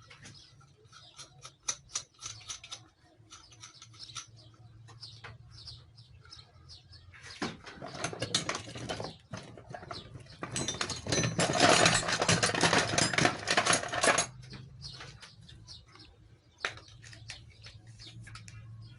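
Hands handling parts of a homemade welding rig: scattered small clicks and clinks. From about a third of the way in to about three quarters of the way through, there is a louder rough scraping, rustling noise with a brief pause in it, over a faint low hum.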